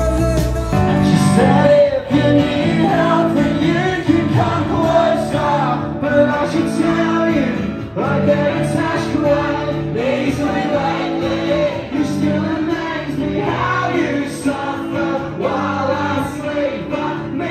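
Rock music with singing. The heavy low bass drops out about a second in.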